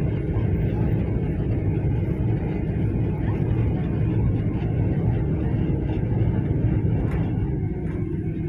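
Ferry's engines running with a steady low rumble.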